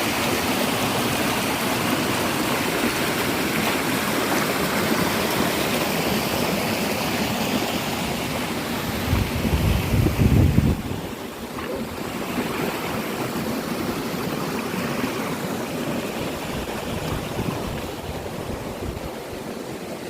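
Patna Waterfall's water rushing and splashing in a steady, even noise. About halfway through there is a brief low buffeting rumble, and the water is a little quieter after it.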